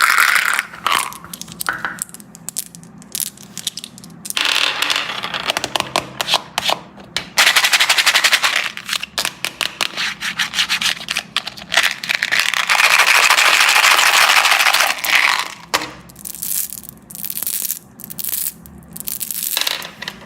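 Candy being handled for ASMR: dense crinkling and crackling in long runs of a few seconds each, with scattered sharp clicks and cracks between.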